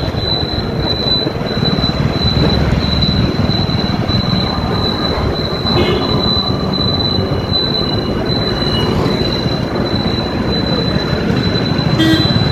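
Motorbike riding in city traffic: steady engine and wind rumble with a thin high whine, and short high tones about six seconds in and again near the end.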